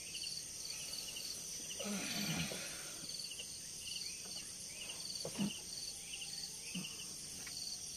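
Pre-dawn insect chorus: crickets and other insects keep up a steady high hiss with repeated short chirps. A faint distant voice, likely the morning Quran recitation, comes through about two seconds in.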